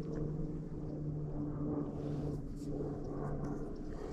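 Steady low hum of the bass boat's motor, with a low rumble of wind on the microphone. A few faint ticks come about halfway through.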